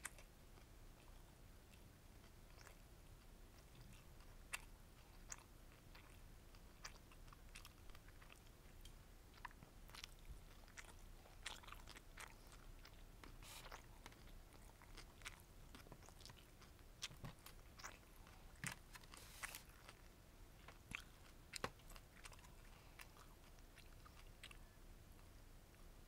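Chewing of bulgogi gimbap (rice, seaweed and crunchy vegetables), heard as faint, scattered wet clicks and small crunches that come thickest in the middle of the stretch.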